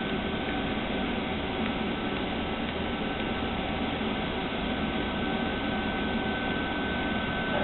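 CNC stepper motor jogging the X-axis table of a Rongfu mill-drill, a steady whine over machine hum.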